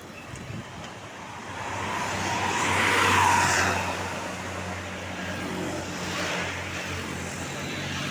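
Road traffic: a vehicle passes close, swelling to its loudest about three seconds in and fading a second later, over the steady low hum of an engine running nearby. No telolet horn sounds.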